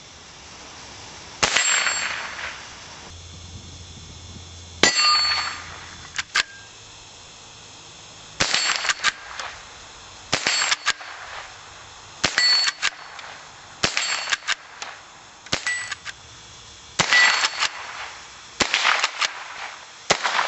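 About ten .22 Long Rifle shots from a Browning BL-22 lever-action rifle, one every one and a half to three and a half seconds. Each shot is followed by the ringing ding of a steel target being hit, with smaller clicks between shots from the lever being worked.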